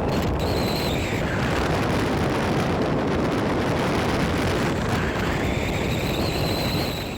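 Rushing noise of a vehicle in motion, with wind buffeting the microphone. A high whine slides down in pitch about a second in and climbs back up near the end.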